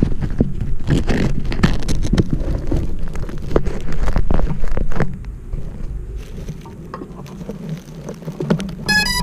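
Low rumbling and scattered knocks on an action camera's microphone, from wind and handling, easing off about five seconds in. Near the end a short series of electronic beeps starts.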